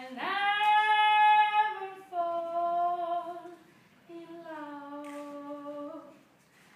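A woman singing solo without accompaniment: three long held notes, each lower than the one before, with short breaths between.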